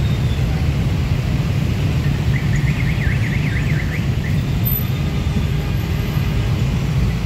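Dense road traffic of scooter-type motorcycles and cars passing close by, a steady low engine rumble. A brief high warbling tone sounds over it a couple of seconds in.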